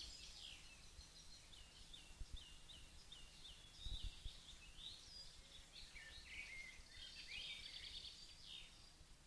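Faint woodland birdsong: several small songbirds chirping and singing, with a run of short repeated hooked notes in the first half. Two or three low dull thumps come about two and four seconds in.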